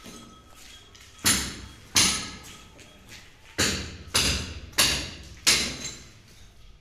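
Hammer blows from construction work, six sharp strikes at uneven intervals, each ringing briefly.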